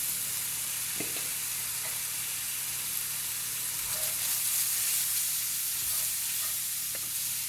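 Fried rice with shrimp, onions and green onions sizzling steadily in hot oil in a pan, with a couple of light clicks about a second in and near the end.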